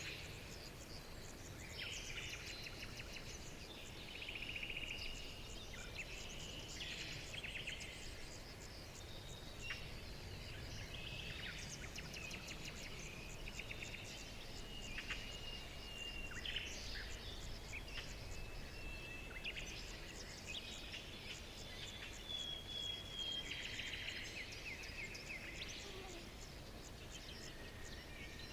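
Several wild birds chirping, whistling and trilling, with calls overlapping throughout, over a steady low background rumble.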